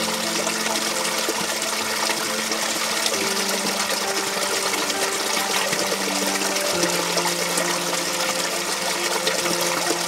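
Freshwater spring spilling in a small cascade over rocks into a shallow pool: a steady splashing rush of water.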